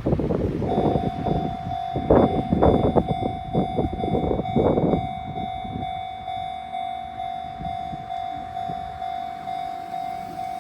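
Japanese level-crossing warning bell starting up about a second in: a single electronic ding repeating evenly a little under twice a second. Under its first few seconds there is a loud rumbling noise with irregular jolts, which dies away after about five seconds.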